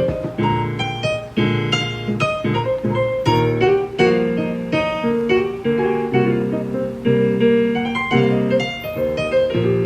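Live instrumental music: a keyboard played in a quick run of struck notes and chords that ring and fade.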